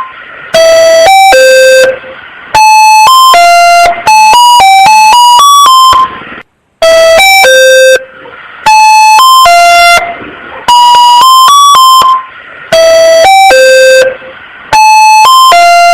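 Electronic emergency alert alarm tone, sounding loud and buzzy. It repeats a short run of about four stepped beeping notes roughly every two seconds, with brief gaps between runs.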